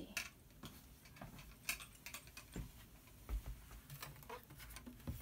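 Faint, irregular light taps and clicks from hands handling closed aluminium laptops on a glass shelf, about a dozen small knocks spread unevenly.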